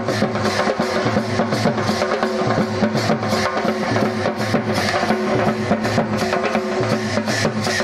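Folk drum ensemble playing a fast, steady beat. A large hand-played barrel drum and a stick-beaten drum carry the beat, with a tambourine and small hand cymbals jingling over it.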